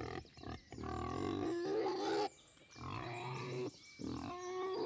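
Wild boar calling in three bouts of pitched grunts, each about a second long, with short pauses between.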